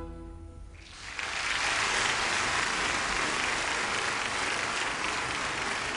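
Audience applause that breaks out about a second in, just as the orchestra's final held chord dies away, then carries on steady and full.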